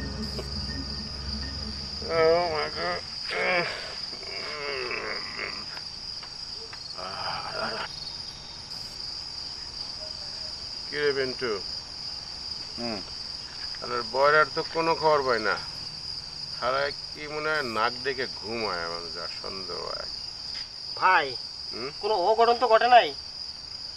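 Crickets chirping steadily in a continuous high band. Short, wavering voice sounds come and go over it, loudest near the end.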